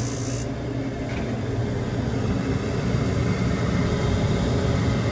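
Magic-Pak packaged HVAC unit running in heat mode with its newly replaced inducer motor going: a steady hum and rumble. A high hiss cuts off about half a second in.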